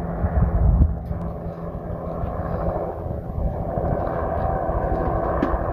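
Helicopter flying overhead, its engine and rotors droning steadily. Gusts of wind rumble on the microphone, strongest about a second in.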